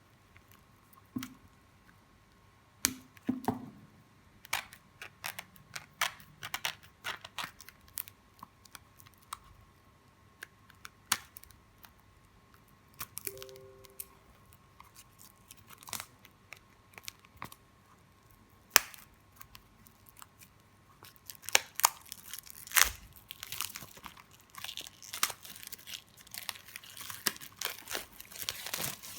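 Packaging being torn open and crinkled by hand: scattered sharp crackles and handling clicks, becoming a dense, continuous crinkling in the last several seconds.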